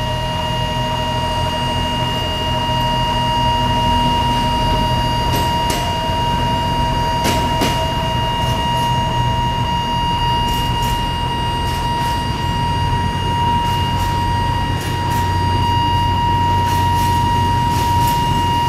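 Level-crossing warning alarm sounding as one steady high tone over the low rumble of an Alishan Forest Railway diesel locomotive and its train passing. Sharp clicks from the train's wheels on the rails come from about five seconds in.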